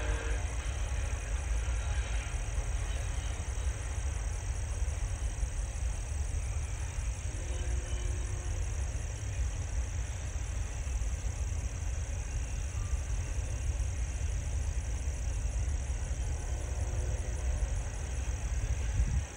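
Double-stack container freight train rolling past at a distance, a steady low rumble.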